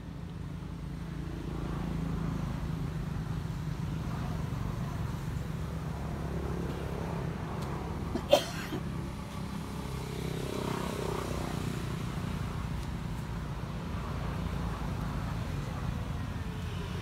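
A steady low motor rumble, like an engine running at a distance, with one sharp click about eight seconds in.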